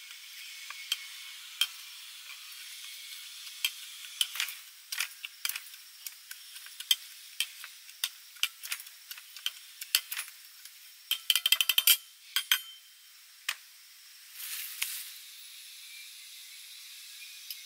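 A muddler pressing and grinding herb leaves inside a metal cocktail shaker tin, giving irregular sharp clicks and taps, with a quick rattle of taps about eleven seconds in. A short rush of noise follows a few seconds later.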